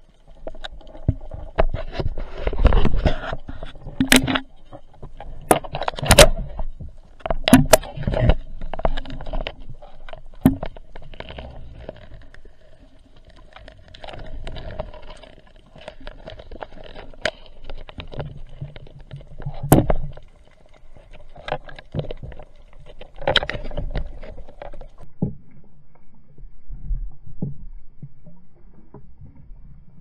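Underwater sound picked up through a camera housing during spearfishing: irregular sharp knocks and scrapes of the speargun and gear against the housing, over a low rumble of water movement. A faint steady hum runs beneath them and stops about 25 seconds in.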